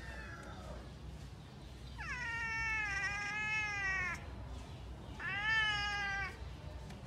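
Domestic cat meowing twice: a long, drawn-out meow about two seconds in, then a shorter one, each starting high and falling in pitch.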